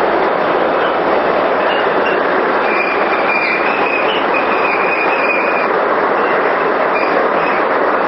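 Water-flow hydropower machine running, with water rushing through it: a loud, steady rushing noise, and a thin high squeal for a few seconds in the middle.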